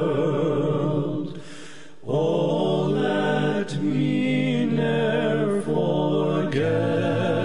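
Church congregation singing a hymn unaccompanied, several voice parts in harmony. About a second in, the voices stop briefly for a breath, then sing the next line with held notes.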